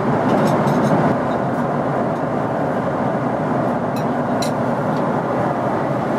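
Steady cabin noise of a Boeing 777-300ER airliner in cruise: an even rush of air and engine noise, with a few faint clicks near the start and again about four seconds in.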